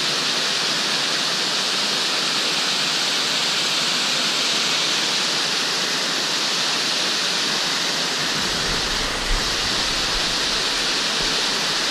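A small waterfall on a stream pouring into a pool, a steady rushing of water.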